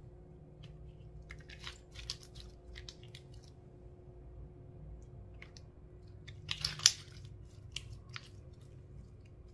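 Slime being kneaded and pressed by hand, giving irregular sticky clicks and wet crackles, with a louder squelching pop about two-thirds of the way through.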